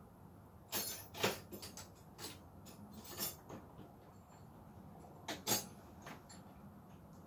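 Scattered light clinks and taps of small hard objects being handled, in a cluster about a second in and a couple more a little after five seconds.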